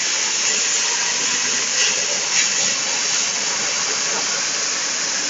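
Laser cutting machine cutting steel sheet: a steady hiss from the cutting head's gas jet and the burning metal, with two brief louder flares about two seconds in.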